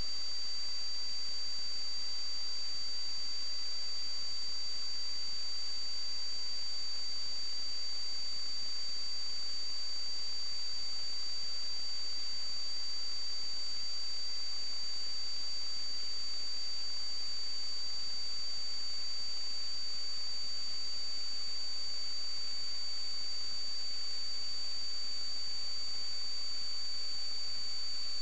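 Steady high-pitched electronic whine over a constant hiss from the sewer inspection camera's recording system, unchanging throughout.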